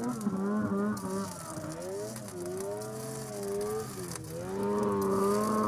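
Mountain snowmobile's two-stroke engine revving as the sled carves through deep powder, its pitch swooping up and down with the throttle and dipping twice before climbing again near the end.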